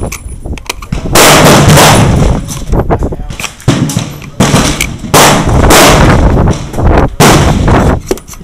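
Gunfire from other shooters on the firing line: four loud shots spread across a few seconds, each with a long echoing tail, and a few fainter shots between them.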